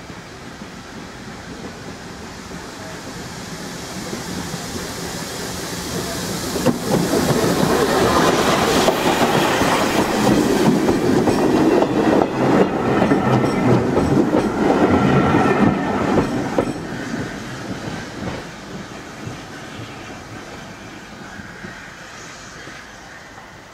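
Steam-hauled train of British Railways Mk1 coaches passing close by: the sound swells as it approaches. For about ten seconds the wheels clatter over the rail joints, then it fades into the distance.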